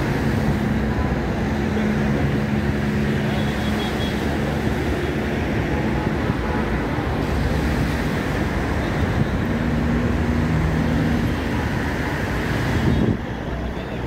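Steady wash of wind and small waves breaking on a sandy shore, with the low engine hum of road traffic coming and going underneath.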